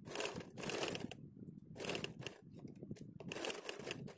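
Janome electric sewing machine stitching in several short runs, starting and stopping a few times.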